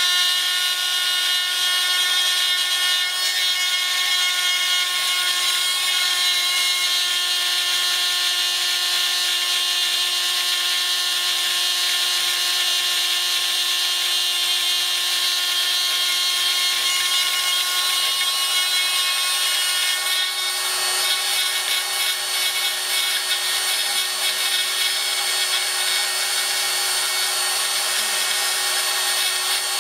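Small Proxxon mains-powered drill spinning a D cutter in a pantograph engraver, milling thin nickel silver sheet: a steady high motor whine with the hiss and rasp of the cutter in the metal. The cutting noise grows rougher about twenty seconds in.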